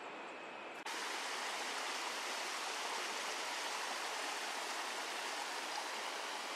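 Small rocky mountain stream cascading over boulders, a steady rush of water. It comes in abruptly about a second in, after a softer steady hiss.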